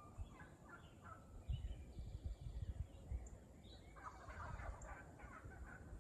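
Faint calls of wild turkeys, with a denser run of calls about four seconds in, over low, irregular thuds of footsteps.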